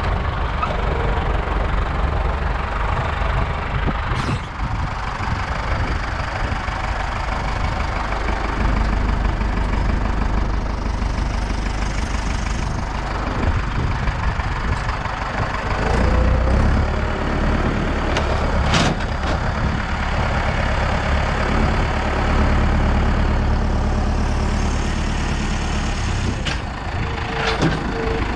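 Fendt tractor's diesel engine running steadily, picking up speed now and then as the front loader's hydraulics lift and tip a bundle of firewood. A few sharp clanks from the loader and bundler.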